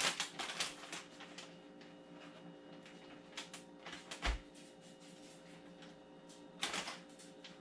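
Plastic zip-top bag holding fish and fish-fry breading mix being handled: short crinkles and rustles, loudest at the start, a soft knock about four seconds in and another rustle about seven seconds in, over a faint steady hum.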